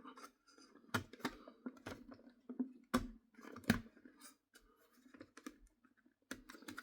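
Irregular plastic clicks and light knocks as a model locomotive's body shell is handled and pushed down onto its chassis, the loudest about three seconds in.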